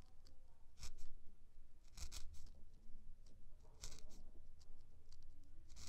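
Single felting needle stabbing through wool roving, a handful of short, faint, sharp pokes at irregular intervals while a thin strand of black wool is tacked in place.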